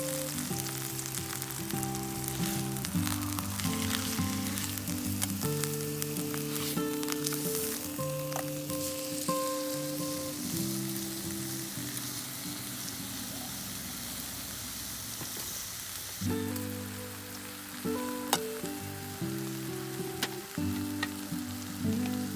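Food sizzling and crackling as it fries, a dense hiss dotted with small pops. Background music of held notes plays under it, pausing for a few seconds midway.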